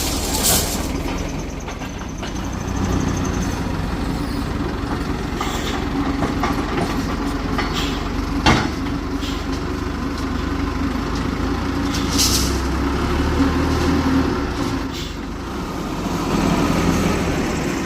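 Heavy construction machine engine running steadily under work, with a sharp metallic knock about eight seconds in and short hisses now and then.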